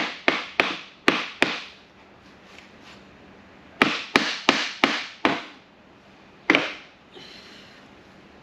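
Hammer blows on the wooden frame of an RV dinette chair: a run of five quick strikes at about three a second, a pause of a couple of seconds, another run of five, then a single last blow.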